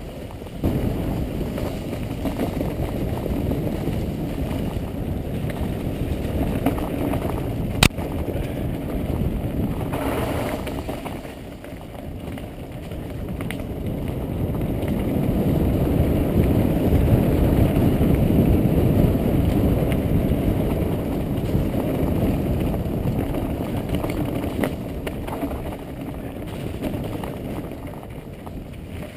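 Mountain bike riding downhill over a rough trail of leaves and loose stone: a steady rumble of tyres and rattling bike, with wind buffeting the microphone. A single sharp knock about eight seconds in, and the rumble is loudest over the rocky stretch in the middle.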